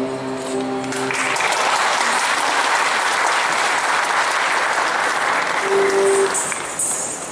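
A held musical note fades out about a second in, and an audience breaks into steady applause that carries on to near the end.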